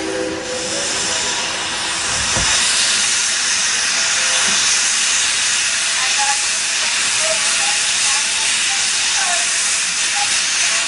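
Shay geared steam locomotive setting off: the tail of its steam whistle dies away in the first half-second, then steam blowing off with a loud, steady hiss.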